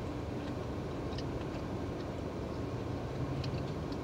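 Steady low hum in a car's cabin, with a few faint wet clicks of chewing.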